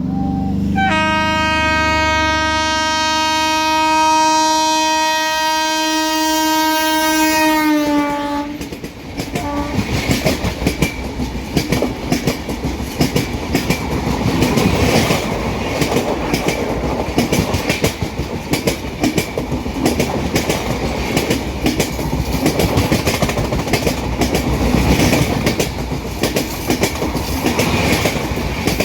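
WAP-7 electric locomotive's horn sounding one loud, long blast of about seven seconds, dropping in pitch just before it stops as the locomotive passes. The express's coaches then rush past with a rapid, continuous clickety-clack of wheels over the rail joints.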